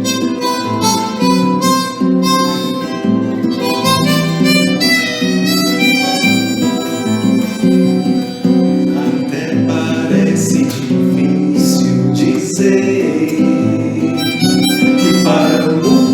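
Instrumental introduction of a Christian song: a held-note lead melody over acoustic guitar accompaniment.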